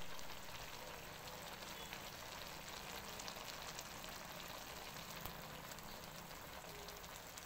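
Sardine-and-cabbage broth simmering in a wok: a faint, continuous fine crackle and patter of small bubbles, with scattered tiny ticks.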